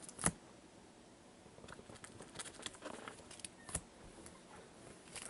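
Faint handling sounds of trading cards being gathered and stacked by hand: light rustling with scattered small clicks and taps, the sharpest click a fraction of a second in.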